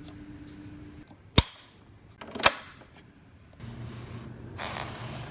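Two sharp plastic clicks about a second apart, then a small battery-powered toy train motor starts running with a steady low hum.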